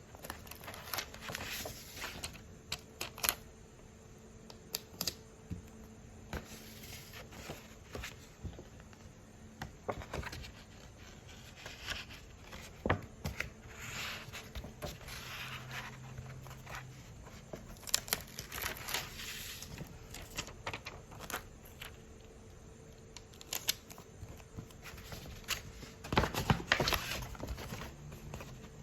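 Hands unpacking and handling paper and plastic packaging: scattered crinkling and rustling with small sharp clicks, at an uneven pace, over a faint steady hum.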